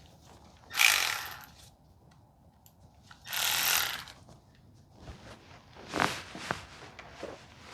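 Tool and parts noise from A/C line fitting work on a truck: two short hissing bursts, each under a second and about two seconds apart, then a few light metallic clicks and knocks.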